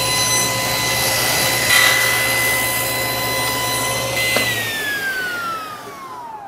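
Table saw running with a steady high whine while its blade cuts through a wooden board, the cut loudest about two seconds in. A little past four seconds a click, the motor hum stops, and the whine falls steadily in pitch and fades as the blade spins down.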